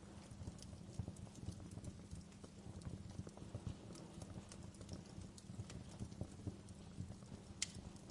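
Wood fire crackling in a stone fireplace: irregular small pops and snaps over a low steady rumble, with one sharper pop near the end.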